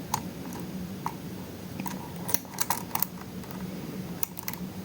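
Light metallic clicks and ticks of a lock pick and tensioner working the pins in an Assa 600 lock with barrels, coming irregularly, about ten over a few seconds, over a steady low hum.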